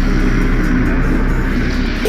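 Music mixed with the steady noise of a car driving.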